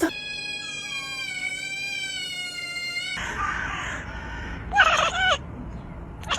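A domestic cat giving one long, drawn-out yowl for about three seconds, followed by short meows near the end.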